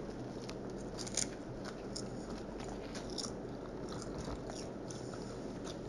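Clear plastic packaging crinkling, with irregular sharp crackles, as a small packet is bitten at and pulled to open it.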